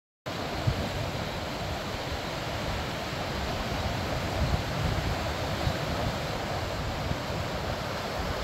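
Waves washing in steadily onto a stony shore, with wind rumbling on the microphone. The sound cuts in suddenly a quarter of a second in.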